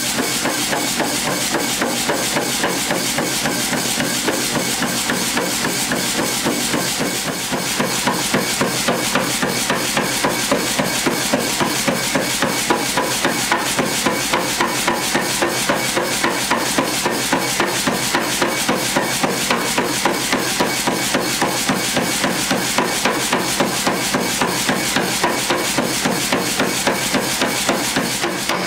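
Power hammer striking a red-hot mild steel bar in a V-shaped die with rapid, evenly repeated blows; the blows hit harder and more distinctly from about a quarter of the way in.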